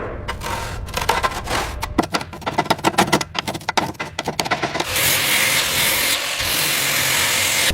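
Rapid scraping and rubbing, with many quick clicks, for about five seconds, then a steady spraying hiss that takes over.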